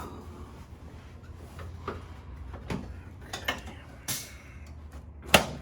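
A patient turning over on a padded chiropractic treatment table: scattered light knocks, creaks and rustles over a steady low hum, with a sharper knock near the end.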